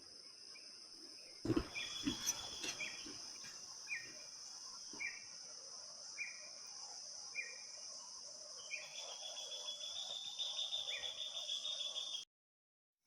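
Tropical forest ambience: a steady high-pitched insect drone with a creature giving short calls about once a second. There is a sharp knock about a second and a half in, and a louder buzzing insect joins after about nine seconds before all sound cuts off suddenly near the end.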